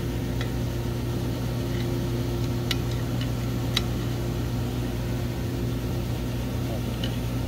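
Steady low electric hum of shop machinery, with two light metal clicks a second apart as a homemade valve-spring compressor is set on an aluminium cylinder head.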